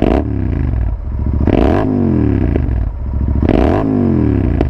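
Royal Enfield Continental GT 650's parallel-twin engine, fitted with AEW 102 aftermarket exhausts, blipped from idle three times about two seconds apart. Each rev rises sharply and falls back to idle.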